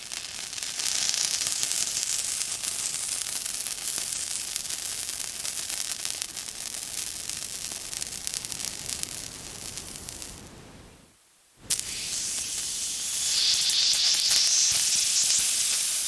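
Water spraying in a steady hiss. It stops for a moment about eleven seconds in, then starts again with a click and runs on.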